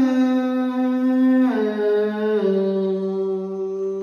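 A solo voice sings a Vietnamese Buddhist devotional chant, drawing out a syllable in long held notes. The pitch steps down twice.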